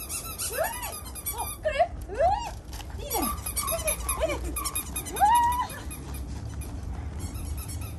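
A dog giving a string of short whines and yips that rise and fall in pitch, the longest held about half a second some five seconds in, excited during play. Running footsteps crunch on wood chips under them.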